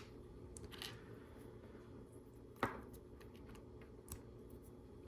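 Faint handling of LEGO Technic pieces, with one sharper plastic click about two and a half seconds in as a part is pushed into place.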